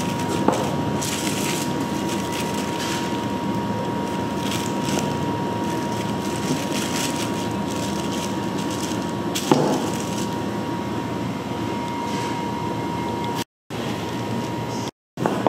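Steady background noise of a working bakery kitchen: a constant high machine whine over an even hum, with two sharp knocks, one near the start and one past the middle.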